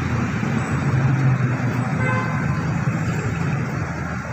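Steady low rumble of nearby motor traffic, with a brief faint high tone about two seconds in.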